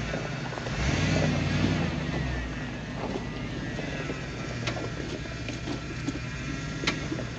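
Vehicle engine running at low speed, briefly louder about a second in, with a few sharp ticks and knocks over it.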